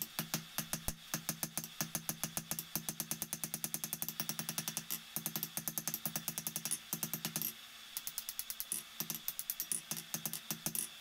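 Rapid, even hammer blows on hot steel over an anvil, about six a second, each with a ringing tone, as the poker end is drawn out into a taper. The blows break off briefly about three-quarters of the way through, then go on.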